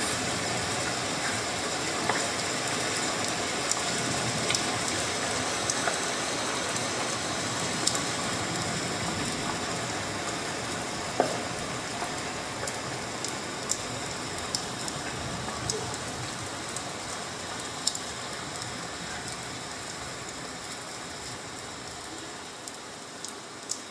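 Steady rain-like hiss, part of the dance's soundtrack played through the theatre speakers, slowly fading, with scattered faint clicks.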